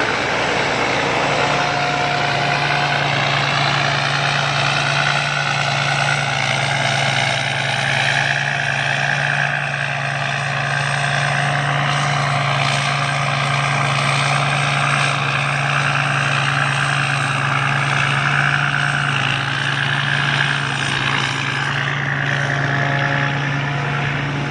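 Combine harvester running steadily: a constant low engine hum with higher machinery whines that drift slightly up and down.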